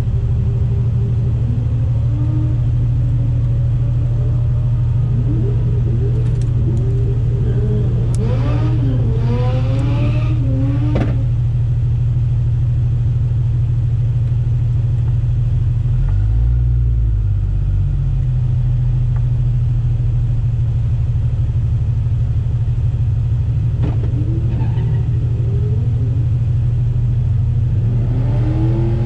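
Turbocharged 2JZ inline-six of a VH Commodore idling with a steady, loud low drone inside the cabin. The car ahead revs hard through its burnout about six to eleven seconds in, stopping suddenly, and more revving rises near the end.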